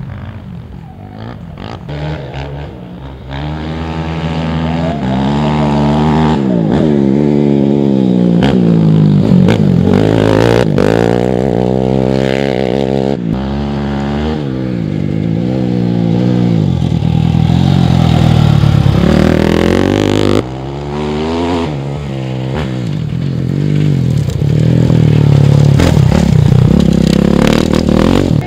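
Off-road dirt bike engines revving hard as riders race past, pitch climbing and dropping again and again. The sound breaks off abruptly about twenty seconds in and builds again with another bike.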